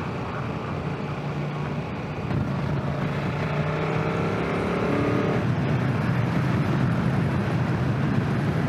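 Motorcycle engine pulling through an overtake, heard from the rider's own bike. Its note climbs about halfway through, and it grows steadily louder.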